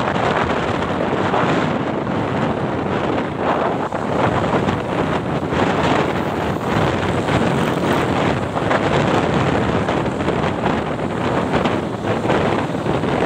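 Heavy wind buffeting the microphone of a moving motorcycle, a steady dense rush that drowns out other sound.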